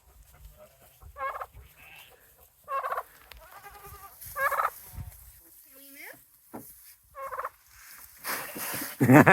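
Farm animals calling while crowding in for feed: a series of short, wavering calls spaced a second or two apart, with a louder burst of calling near the end.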